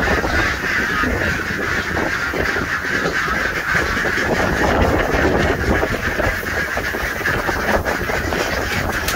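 A flock of penned domestic ducks and geese calling all together in a dense, continuous clamour while being fed grain, over a steady low rumble.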